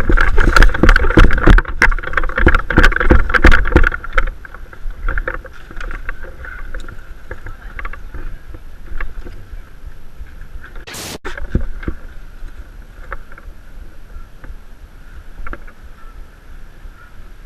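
Knocking and rumbling handling noise on a body-worn camera's microphone as an airsoft player moves, loud for about the first four seconds. It then dies down to a steady high hum with a few scattered clicks and one short sharp burst of noise about eleven seconds in.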